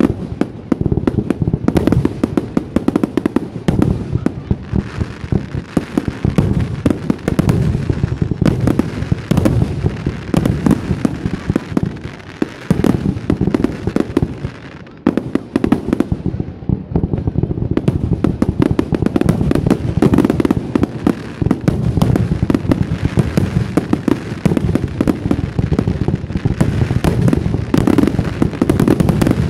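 Fireworks display: a rapid, almost unbroken barrage of aerial shells bursting and launching, with a short lull around the middle before the bangs crowd together again.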